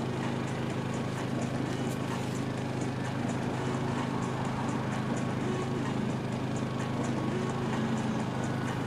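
Steady low mechanical hum, with faint high ticks every half second or so.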